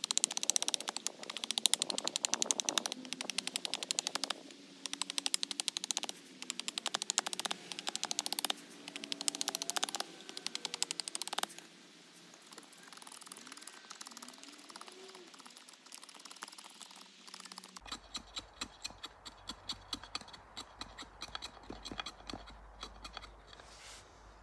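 Knife blade shaving and carving a sycamore bow-drill spindle toward round, in quick repeated scraping strokes. About two-thirds of the way through, the strokes become quieter, slower and evenly spaced.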